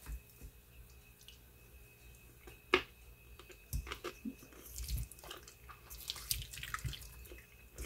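Faint wet squishing and light clicks of a silicone spatula stirring creamy potato salad in a stainless steel bowl, with one sharper click a little under three seconds in.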